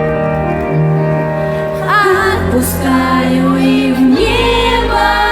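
Live pop band music with held sung notes; a deeper bass comes in about two seconds in.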